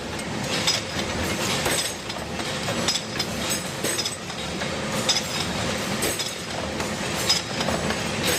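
Machinery running steadily, with irregular sharp metallic clinks and clatter every half second or so.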